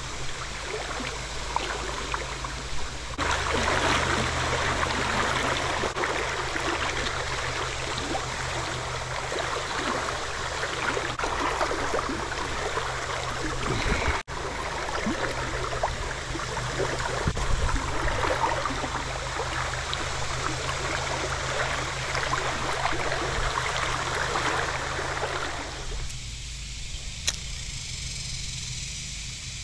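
River water rushing over a shallow riffle, a dense steady splashing and hissing that grows louder about three seconds in, with a steady low hum underneath. Near the end the rush cuts off abruptly, leaving a softer, quieter wash of water.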